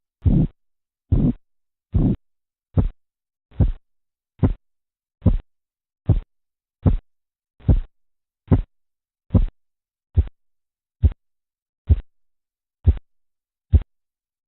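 Korotkoff sounds through a stethoscope over an artery below a deflating blood pressure cuff: a steady pulse of about 17 beats, a little more than one a second. The beats go from longer, swishing ones to short, sharp taps, then stop shortly before the end. The stopping of the sounds marks the diastolic pressure.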